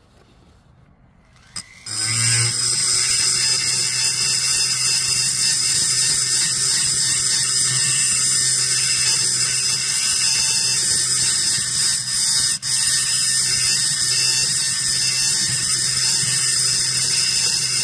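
Small handheld rotary tool spinning up about two seconds in, then running with a steady high whine as its burr grinds into the aluminium air horn of a chainsaw carburettor, enlarging it to improve airflow. The sound drops out briefly about two thirds of the way through.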